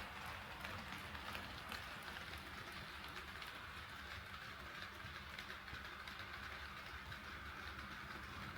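HO scale model train running on KATO Unitrack: a steady whirring rumble of wheels and motor, with sharp clicks as the wheels cross rail joints. The clicks come thickest in the first couple of seconds, then thin out.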